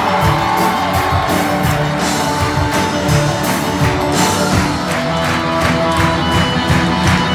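Live rock band playing up-tempo curtain-call music, with electric guitar and a steady drum beat of about four hits a second.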